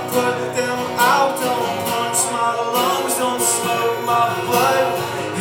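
Acoustic guitar played in a song, with a man's singing voice coming in at moments.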